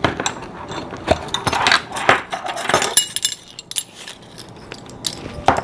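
Irregular clinks and knocks of small kitchen utensils and containers being handled, busiest in the first three seconds and sparser after.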